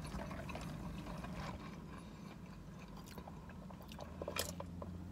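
Quiet sipping through a straw from a paper fountain-drink cup, with a few small clicks and rustles, loudest about four seconds in, over a low steady hum.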